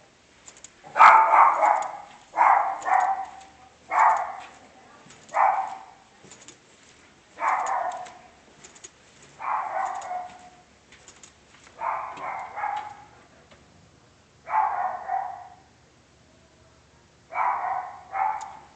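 A dog barking repeatedly: single barks and quick pairs, one to two seconds apart, with short pauses between.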